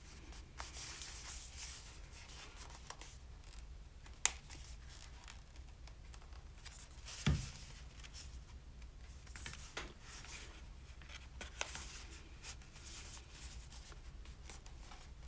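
Faint handling of a small cardboard product box being worked open, with scraping and rustling. A sharp click comes about four seconds in and a knock about seven seconds in.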